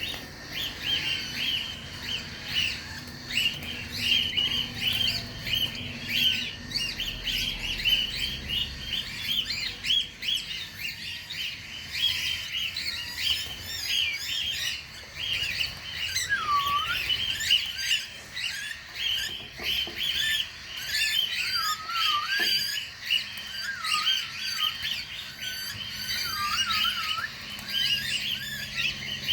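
Many cockatiels chirping together, a dense, continuous chatter of overlapping calls. From about halfway through, short dipping whistled notes join in.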